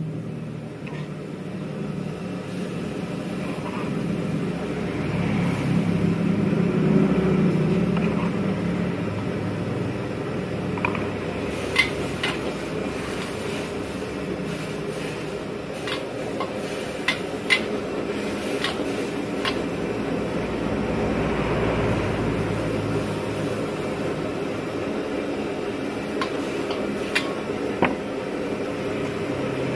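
Steady rushing of a gas wok burner under a steel wok of squid simmering in sauce, with a metal ladle knocking against the wok a few times in the middle and twice near the end.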